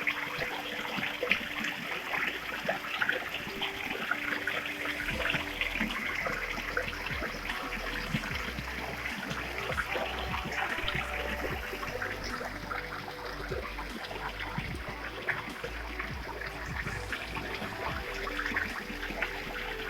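Waterfall water splashing and trickling over rocks: a steady rush with many small splashes.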